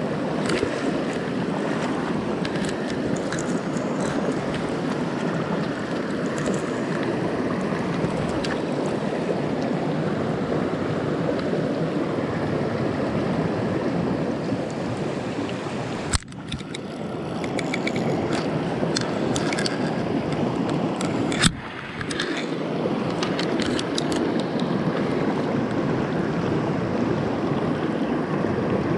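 Shallow mountain stream rippling and babbling over stones, a steady rushing close by. Twice it drops out suddenly for a moment with a click, about halfway through and again some five seconds later.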